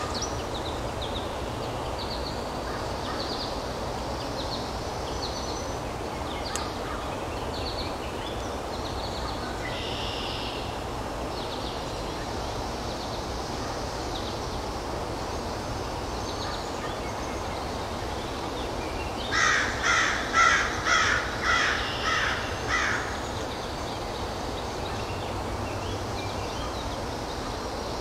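A quick series of about eight short, harsh animal calls, about two a second, fading toward the end. Under them is a steady background of outdoor noise with faint, scattered small-bird chirps.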